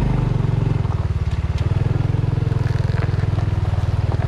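Honda Dash 125 FI's single-cylinder four-stroke engine running steadily as the motorcycle is ridden, with its quick even firing pulses and a few light clicks.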